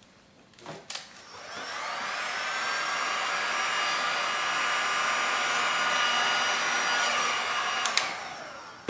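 Heat gun switched on about a second in. Its fan motor spins up with a rising whine and then runs steadily with a rush of blowing air. It clicks off near the end and winds down.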